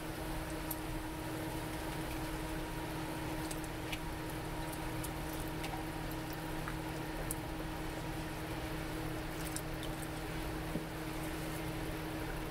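Pan of water with chiles and tomatoes simmering on the stove: faint scattered bubbling pops over a steady low hum.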